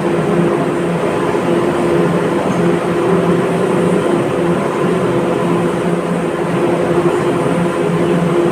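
Electric arc welding: a steady, loud crackling hiss with a buzzing hum that comes and goes.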